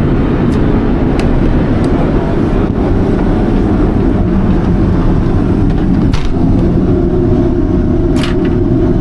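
Steady drone of a jet airliner's cabin in flight, engine and airflow noise. A few light clicks and a knock about six seconds in, after which a steady hum joins.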